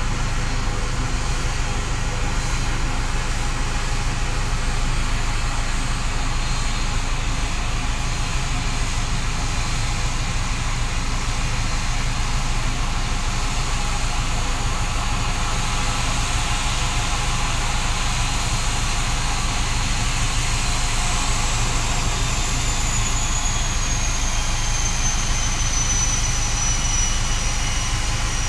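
ATR turboprop engines running steadily after landing, a dense continuous engine noise with a high whine that slides lower about twenty seconds in and then holds.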